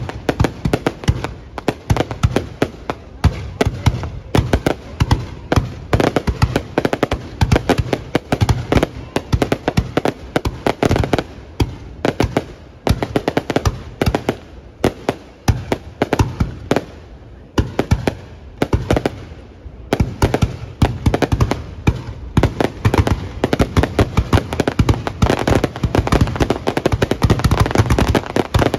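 Fireworks display: a dense, continuous barrage of aerial shell bursts and crackling, with a brief lull about two-thirds of the way through before the bangs pick up again.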